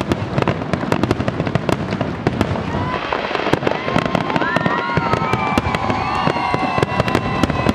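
Fireworks salute going off: a dense run of crackling bangs and pops. From about three seconds in, several long high tones that bend slowly in pitch sound alongside them.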